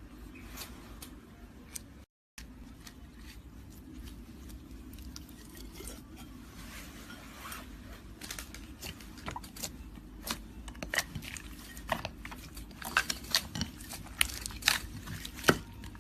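Slime being squished and worked by hand, giving scattered sharp pops and crackling clicks that come thicker and louder in the last few seconds.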